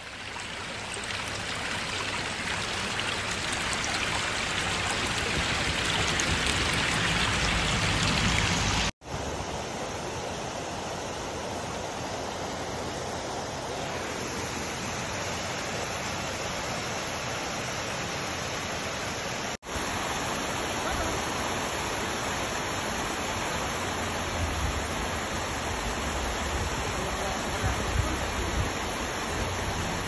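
Muddy flash-flood water rushing and splashing over rocks and down small cascades in a rain-swollen rocky valley: a steady, even rush that swells over the first several seconds. It breaks off for an instant twice, about 9 and 20 seconds in, then carries on.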